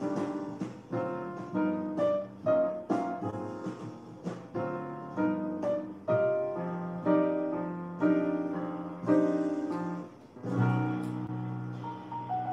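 Background piano music: a melody of separate struck notes that each fade, with deeper, fuller notes coming in after about ten seconds.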